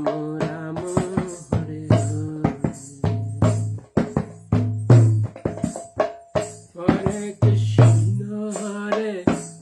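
Kirtan devotional music without chanted words: held melodic tones over steady clicking hand percussion and a recurring low drum beat.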